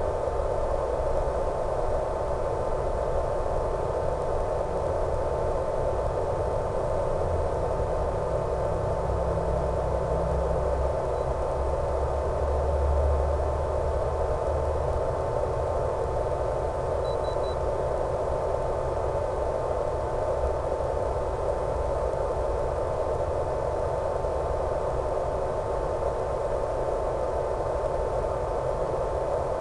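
Steady static hiss from an analog 1.3 GHz FPV video link's audio channel, with a constant thin whine just under 1 kHz and a low hum beneath it.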